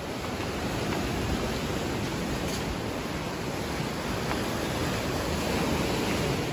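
Steady rush of sea surf, waves breaking on the shore and rocks.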